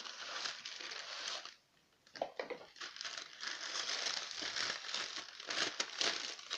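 Paper wrapping crinkling and rustling as hands unwrap and handle it, with a brief pause about two seconds in.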